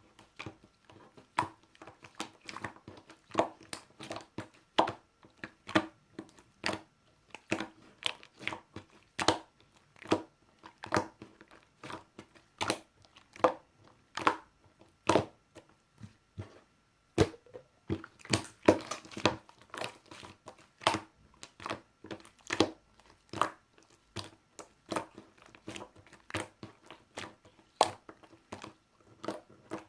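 Marbled slime being squeezed and stretched by hand, making irregular sharp pops and clicks, one to several a second, with denser clusters partway through.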